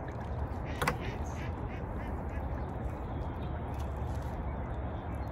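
A sharp click about a second in, followed at once by a bird's quick run of short, quack-like calls lasting about a second, over a steady low rumble.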